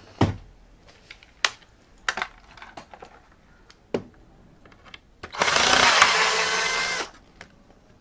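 A few sharp knocks and clicks of handling, then a cordless drill-driver runs in one steady burst of under two seconds, about two-thirds of the way in, turning out a screw from the drive enclosure's cover.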